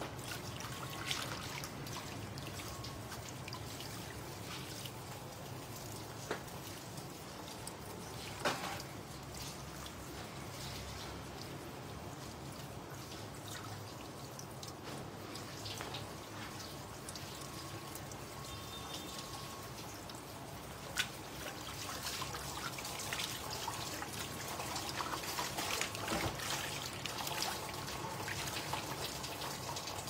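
Water trickling and dripping steadily from soaked, freshly dyed cloth held up to drain, with a few sharp clicks now and then.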